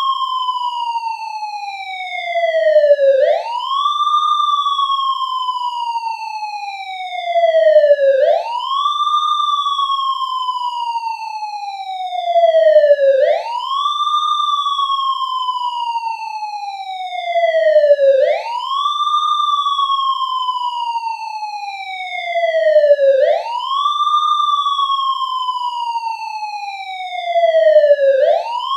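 Electronic siren-like tone that slides slowly down in pitch and then snaps quickly back up, repeating about every five seconds: a synthetic siren sound effect.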